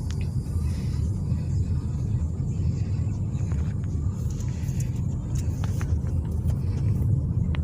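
Car driving slowly, with a steady low road rumble.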